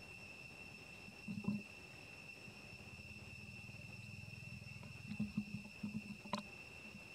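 Faint, steady high-pitched insect drone, with a few soft low knocks and a sharp click about six seconds in.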